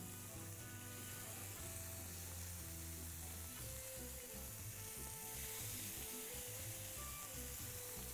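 Raw chicken breasts sizzling on a hot ridged grill pan as pieces are laid down one after another, a steady hiss that grows stronger about halfway through, with background music.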